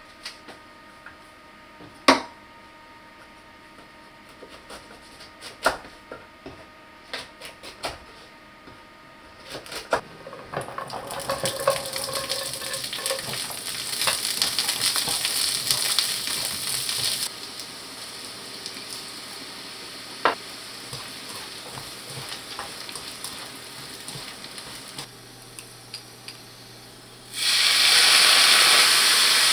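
A few sharp clicks and knocks of kitchen utensils, the loudest about two seconds in. Then cut garlic scapes sizzle in a hot nonstick pan as chopsticks stir them. Near the end a loud burst of sizzling starts suddenly as soy sauce is poured into the hot pan.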